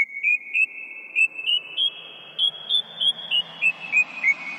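A melody of short, bright bell-like chime notes, about three a second, climbing step by step in pitch and then stepping back down, each note ringing on under the next.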